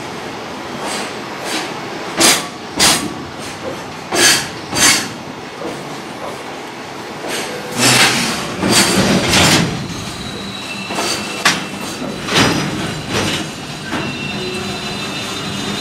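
Long freight train of container flat wagons rolling past close by: a steady rumble of steel wheels on rail, broken by sharp knocks, often in pairs, as the wagons' wheels cross rail joints. A faint high wheel squeal comes in about two-thirds of the way through.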